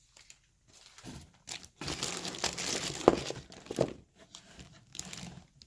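Packaging crinkling and rustling as it is handled and pulled open by hand, in uneven bursts with a few sharp crackles, busiest about two to four seconds in.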